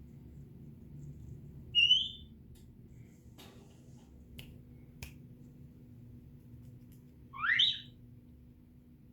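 African grey parrot giving two short whistles: a brief high one about two seconds in, and a quick rising whistle near the end. A few faint clicks fall between them.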